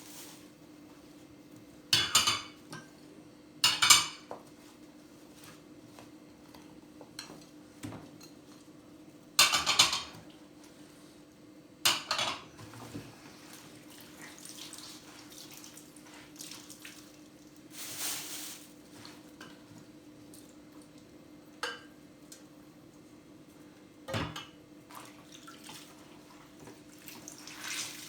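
Wet china and cutlery clinking and clattering in short bursts as pieces are lifted out of a flooded storage box, about seven times, with the loudest clatters near the start and around ten seconds in. A steady low hum runs underneath.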